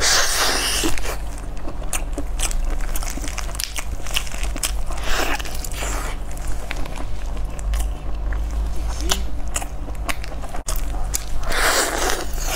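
Close-up eating sounds of a glazed roast chicken leg: bites, wet chewing and the meat being torn apart by hand, with many small clicks and smacks. The louder bites come near the start and again near the end, over a steady low hum.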